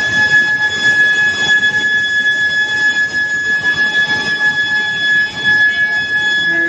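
Induction billet heating furnace running: its coil and power supply give a steady high-pitched whine with ringing overtones, over the rattle and rumble of the billet line.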